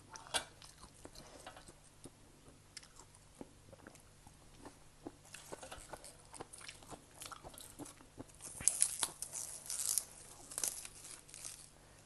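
Close-up eating sounds: a person chewing and crunching crisp raw vegetables, with scattered small crackles and a run of louder crunchy bites about two thirds of the way through.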